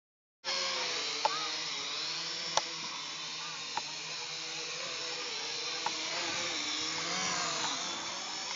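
Holystone HS270 quadcopter's brushless motors and propellers whining, the pitch wavering up and down as the drone manoeuvres, with a few sharp ticks. The sound cuts in abruptly about half a second in.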